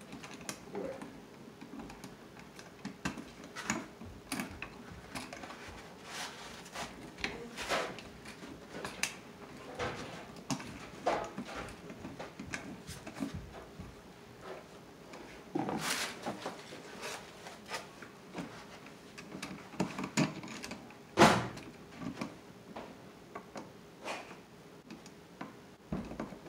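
Scattered clicks, rustles and small knocks of hands working an electrical outlet and its wires into a wall box, with two sharper knocks about 16 and 21 seconds in, the second the loudest.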